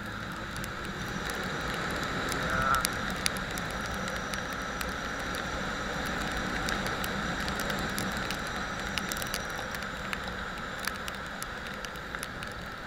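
Steady rushing wind noise on a riding motorcycle's microphone, with a low rumble underneath and scattered small clicks. It swells a little through the middle.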